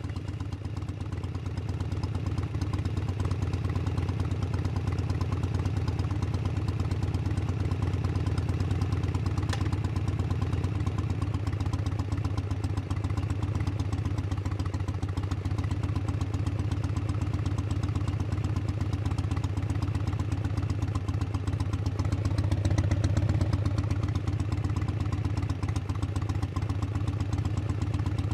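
Motorcycle engine idling steadily just after starting, with a slight swell in level about two-thirds of the way through.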